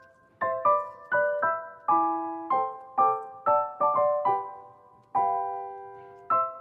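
Background piano music: a gentle melody of single struck notes that fade, a few a second, with a longer held chord near the end.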